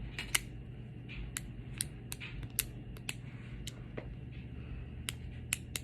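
Plastic Wacky Track fidget chain, made into a snapper, clicking as its links are bent and snapped: a dozen or so sharp, irregular clicks.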